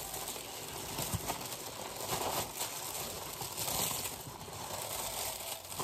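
Wrapping paper rustling and crinkling in irregular swells as a package is unwrapped by hand, with a few light clicks.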